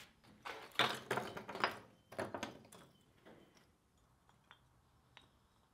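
Dry wooden kindling sticks clacking and knocking together as they are set down in a small stack on the coal of a blacksmith's forge: a handful of knocks in the first three seconds, then a few faint taps.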